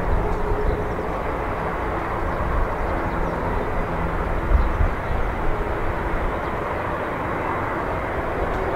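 Airbus A340-600 airliner with four Rolls-Royce Trent 500 engines landing: a steady jet rumble as it flares, touches down about four seconds in and rolls out along the runway.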